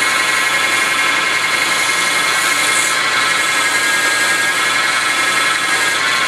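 Mini wood lathe running with a steady high whine, over the even hiss of sandpaper held against the spinning wooden spindle.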